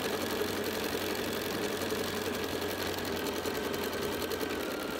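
Bernina sewing machine stitching at a fast, steady speed, sewing cord down onto fabric.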